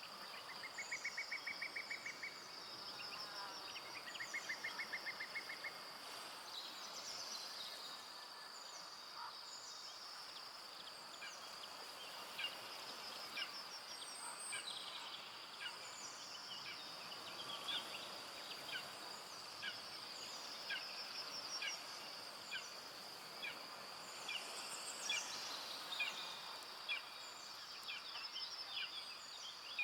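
Forest ambience: a steady high-pitched insect drone with birds calling over it. Two short rapid trills come in the first few seconds, then many brief chirps and whistles.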